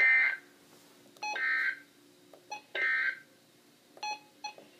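Emergency Alert System end-of-message data tones on a NOAA Weather Radio broadcast: three short bursts of shrill digital warble, about a second and a half apart, signalling the end of the flood watch message. A couple of faint clicks come near the end.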